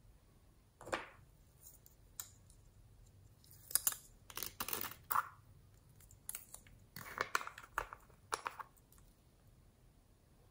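Small plastic jars being handled and opened: scattered clicks and crinkly rustles of plastic, in a few short bursts about a second in, around the middle and a little after.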